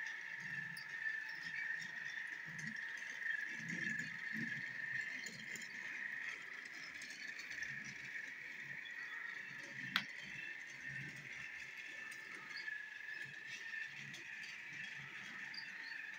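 Battery-powered Hit Toys Duncan toy engine running along plastic track, its small electric motor whirring steadily at a high pitch while the wheels and the truck behind it rattle over the track. One sharp click about ten seconds in.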